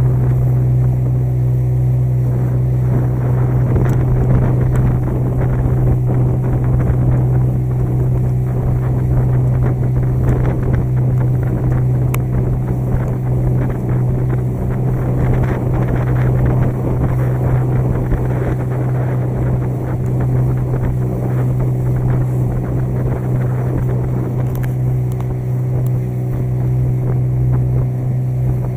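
Small motorboat's engine running steadily under way: a constant low drone with a rushing noise over it.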